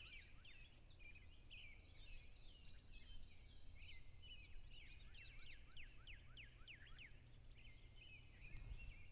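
Faint chorus of small birds chirping, many short quick chirps overlapping, over a low steady rumble of outdoor ambience.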